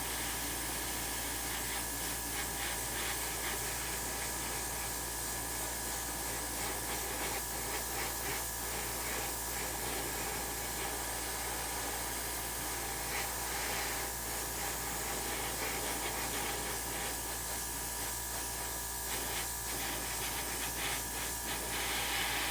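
Airbrush spraying paint onto taped-off trim on a diecast car: a steady hiss of air, with short flickers of extra spray through it.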